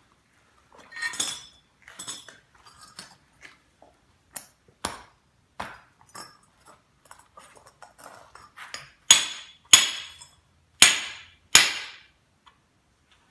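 Steel welding-practice pieces being handled, with light clinks and knocks of metal on metal, then four sharp metal strikes near the end.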